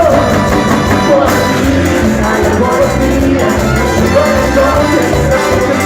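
Latin dance-band music of the cuarteto style, an instrumental passage with sustained melody tones over a steady bass and percussion beat.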